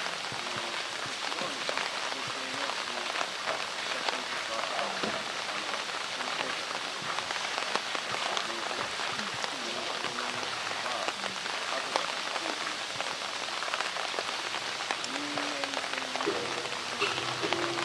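Steady hiss and patter of falling water, scattered with many small clicks and taps.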